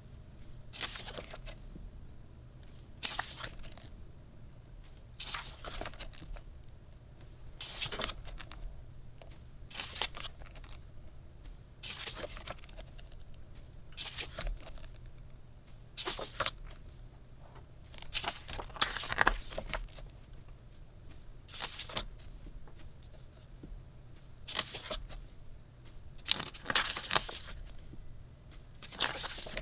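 Pages of a photobook being turned by hand, a short paper swish and rustle about every two seconds, with longer rustling twice in the second half.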